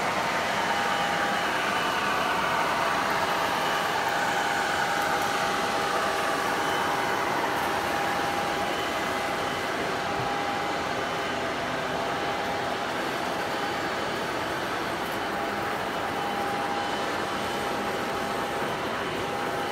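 Model trains running on a large layout: a steady rumble of wheels on track, with a steady hum held throughout.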